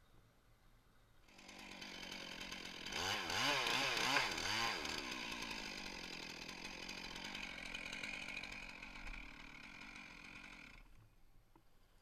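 Chainsaw cutting into a pine trunk: it starts about a second in, revs up and down several times, then runs steadily through the cut and stops shortly before the end.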